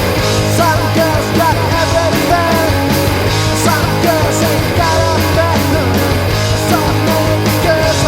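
Loud punk rock song playing: a full band with a steady bass line, drums and guitars, and a bending melody line over the top.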